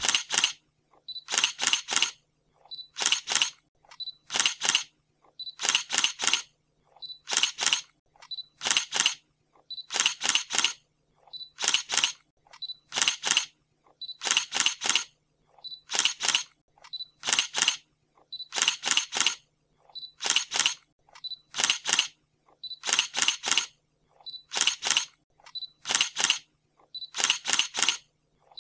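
Camera shutter sound effect, a quick double click repeated at a steady pace about every one and a half seconds, with silence between the clicks.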